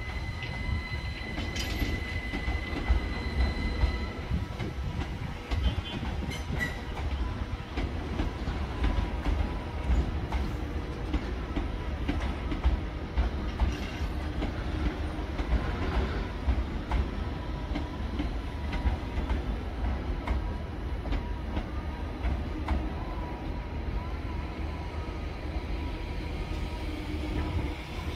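Two coupled GWR Class 387 electric multiple units moving slowly over the station pointwork, with a steady rumble of wheels on rail. A thin high wheel squeal comes in briefly a couple of seconds in.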